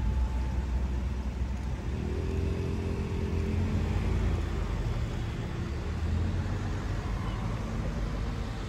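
Outdoor city traffic noise: a steady low rumble, with a road vehicle's engine heard passing a couple of seconds in.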